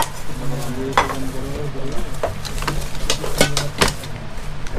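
Pieces of a nested camping cookware set (pots, a frying pan, bowls) being handled and unpacked, clinking and clattering irregularly.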